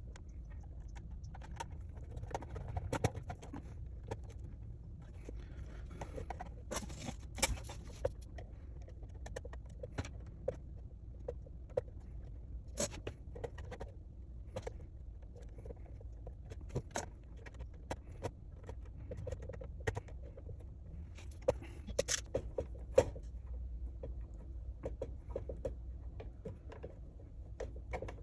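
Irregular light clicks and taps of small screws, tools and plastic parts being handled during hand assembly, over a steady low hum.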